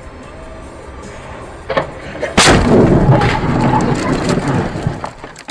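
A car crashing, heard from inside its own cabin: a knock, then a heavy impact about two and a half seconds in, followed by a couple of seconds of banging and crunching that dies away near the end.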